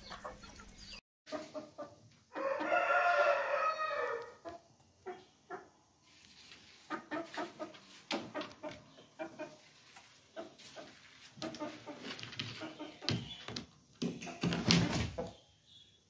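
Aseel rooster crowing once, a single drawn-out call of about two seconds a couple of seconds in, followed by scattered short clucks and calls. A louder, noisier burst comes near the end.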